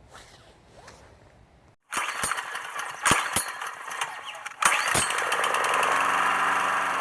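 Strike Master ice auger's small gas engine cutting in suddenly, loud and rough with several sharp knocks, then settling into a steady running note in the last second or so.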